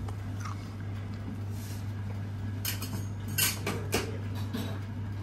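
Tableware clinking: a few light knocks of utensils on plates, mostly in the second half, over a steady low hum.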